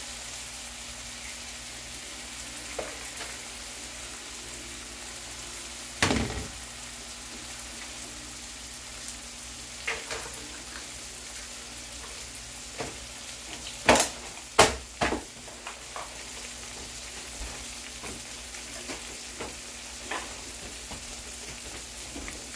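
Tomatoes, onions and eggs frying in a pan, sizzling steadily, with a few sharp knocks and taps; the loudest are three close together about two-thirds of the way through.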